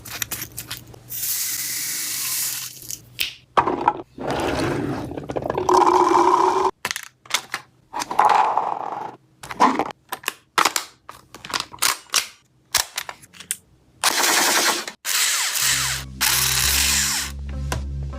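Toy gel blaster firing: whirring bursts of rapid shots and single sharp shots. Electronic music with a heavy bass comes in near the end.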